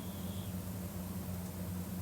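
Steady low hum with an even hiss behind it, unchanging throughout, like a fan or other appliance running in the room; no snore or breath swell is heard. A faint high tone fades out about half a second in.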